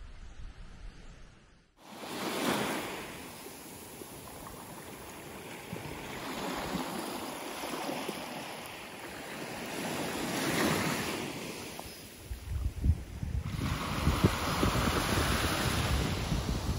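Small waves breaking and washing up on a sandy beach, starting about two seconds in and swelling and easing several times. Wind buffets the microphone in the second half.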